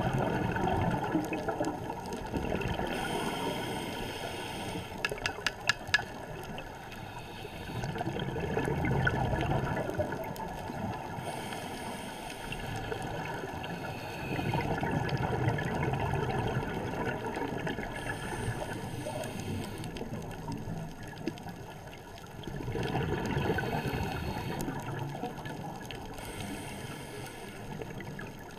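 Scuba breathing through a regulator underwater: a hiss on each inhale, then a rush of bubbling on each exhale, the cycle coming round about every seven to eight seconds. A few sharp clicks about five to six seconds in.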